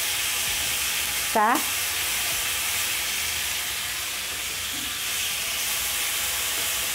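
Chopped tomatoes and onions frying in hot oil in a frying pan, a steady sizzle, while a wooden spatula stirs them.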